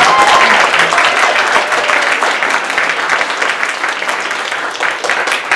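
Audience applauding, loud at first and slowly dying down.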